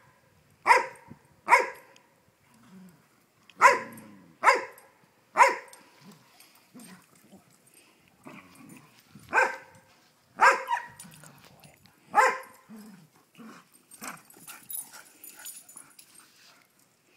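Dogs barking at play: about nine sharp barks, mostly in bunches of two or three, with fainter sounds in the last few seconds.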